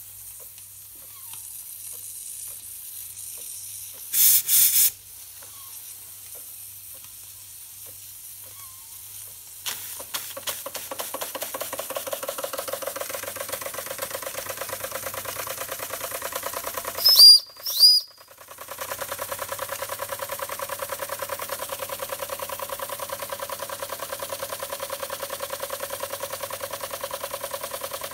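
Schoenner 'Lipsia' live-steam toy engine: a faint hiss with a short loud burst of steam about four seconds in, then from about ten seconds the engine runs with a rapid, even chuffing of its exhaust. Just past halfway come two short, loud, high-pitched blasts, typical of its boiler's steam whistle, and the engine then runs on steadily.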